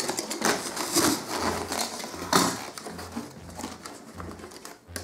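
Cardboard box flaps and crumpled kraft packing paper rustling and scraping as a shipping box is opened by hand, with a few louder swishes.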